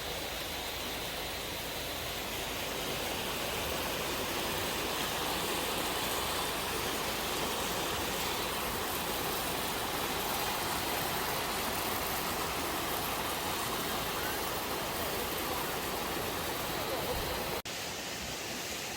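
Mountain stream water rushing steadily, an even hiss with no pauses.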